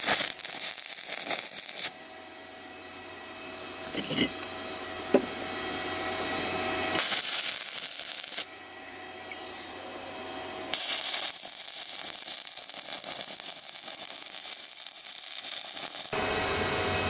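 Stick-electrode (MMA) welding arc burning as a fillet weld is laid on steel: an even hiss that is loud for stretches and drops abruptly several times.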